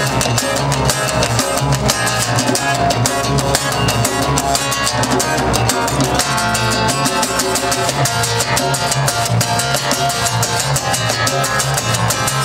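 Live rock band playing an instrumental stretch between sung lines: strummed acoustic guitars over a steady drum beat, with no singing.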